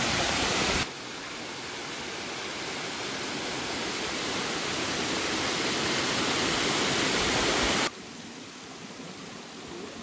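Steady rushing noise of a waterfall, broken by abrupt cuts. About a second in it drops and then builds slowly, and near the end it drops suddenly to a quieter hiss.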